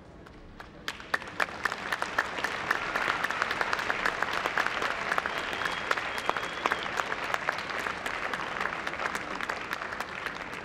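Audience applauding, starting about a second in and then holding steady with many quick claps.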